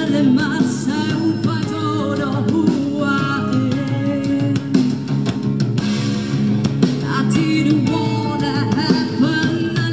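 Live rock band playing a song: a singer's voice over electric guitar, bass and drum kit.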